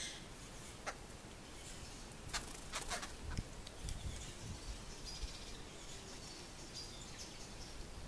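A handful of sharp clicks and taps from babblers pecking food in a concrete feeding bowl, bunched together about two to three and a half seconds in. Faint short high bird chirps come later over steady outdoor ambience.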